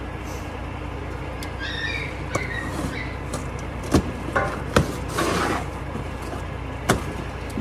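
Steady low mechanical hum with a few sharp knocks and a brief rustle as something is handled.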